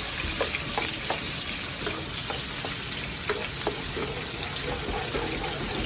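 Onions frying in a hot pot: a steady sizzle with scattered small pops and crackles.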